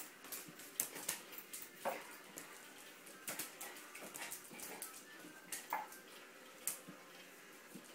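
A dog's claws clicking and scrabbling on a tiled floor as it pounces and turns after a laser dot: irregular sharp ticks, a few each second, some louder than others.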